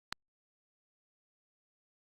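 Near silence, broken by one sharp, very short click just after the start.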